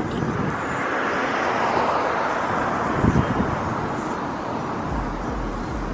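Wind rushing past a moving car with road noise, and low gusts buffeting the microphone near the end.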